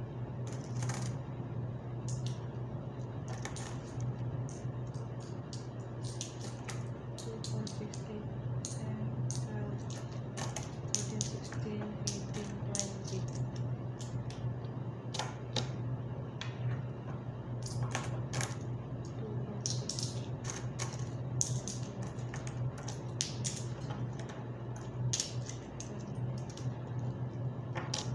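Coins clicking and clinking as they are handled and sorted by hand, in many irregular sharp clicks, over a steady low hum.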